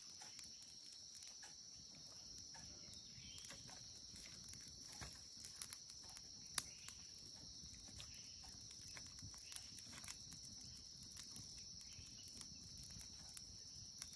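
Faint steady high-pitched drone of an insect chorus, with scattered faint crackles and clicks from a small wood fire.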